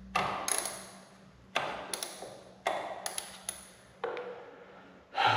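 Metal clinks from an end-cap oil filter socket wrench knocking and slipping on a motorcycle's oil filter: about five sharp pings, each ringing out for around a second. The socket is the wrong size for the filter.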